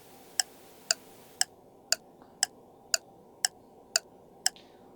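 Clock ticking steadily, about two sharp ticks a second: a ticking-clock effect that marks time to think over a question before the answer.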